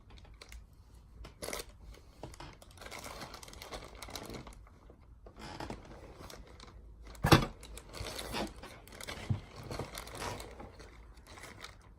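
Packaging being handled: irregular rustling and crinkling, with one sharp knock about seven seconds in.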